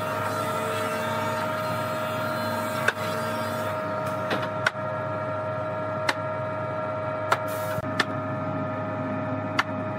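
A woodworking machine running steadily with a constant high hum, and six sharp knocks at irregular intervals, a second or two apart.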